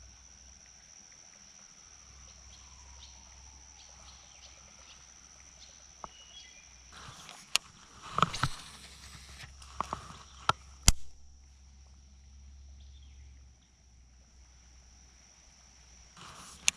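A steady high-pitched insect drone at the creekside, fading about two thirds of the way through. Rustling and a few sharp clicks come in the middle and again near the end, the loudest click coming about eleven seconds in.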